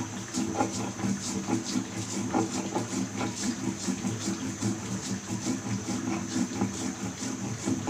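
Fried onion and cumin being ground by hand on a stone shil-pata: the stone roller scrapes back and forth in a quick, even rhythm of short rasping strokes.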